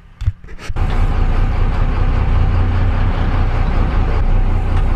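Steady engine noise and wind of a fishing boat under way. It cuts in suddenly about a second in, after a few short clicks.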